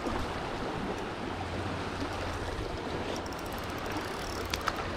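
Steady rushing of a small, shallow river flowing over a riffle, with a few short clicks about 4.5 seconds in.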